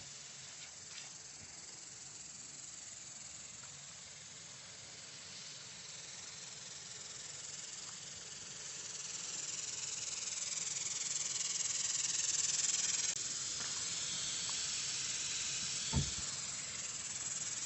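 Air hissing steadily out of an off-road tire through a screw-on tire deflator while airing down, growing louder partway through. A single knock comes near the end.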